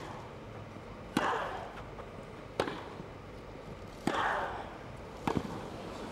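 Tennis rally on grass: racquet strings hit the ball five times, one shot every second and a half or so. Every other shot comes with a short, loud grunt from the player making it.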